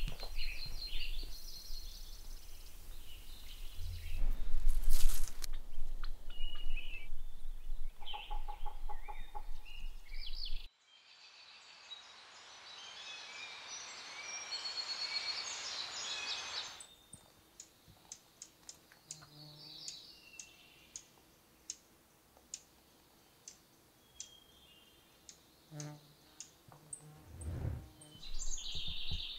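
Birds chirping and singing in the woods. There is a low rumble and a few loud bumps in the first part. After a sudden change to quieter sound, a run of sharp ticks comes about once a second amid more chirps.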